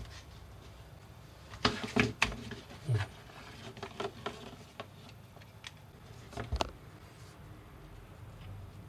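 Handling noise: a scattering of clicks and knocks as a compact router and a plastic hand tool are picked up and handled. The sharpest knocks come about two seconds in, with more about six and a half seconds in.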